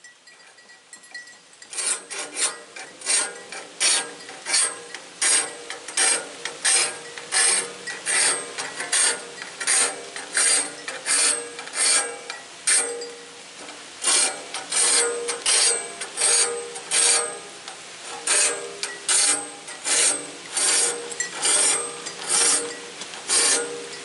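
A metal file rasping across the teeth of a sawmill band blade in even hand strokes, about one and a half a second, with a brief pause about halfway.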